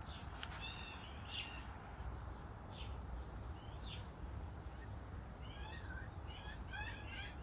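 Small birds chirping: scattered short chirps, then from about five and a half seconds a quick, busy run of repeated chirps over a faint low background rumble.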